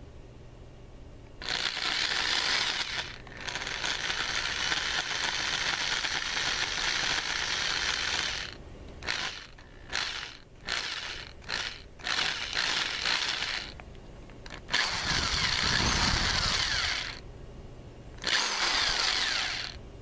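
Electric drill motor running in bursts with nothing in the chuck: a long run of about seven seconds, then a string of short quick trigger pulls, then two more runs of two to three seconds.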